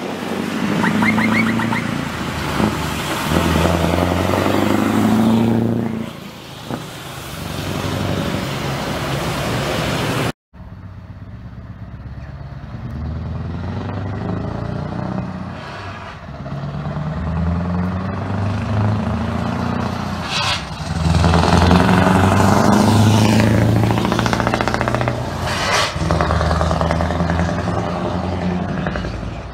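Scania V8 truck engines with open exhaust pipes pulling away under load, the exhaust note rising and falling with each gear change. The sound cuts about ten seconds in to a second Scania V8 truck pulling away and accelerating, loudest about two thirds of the way through.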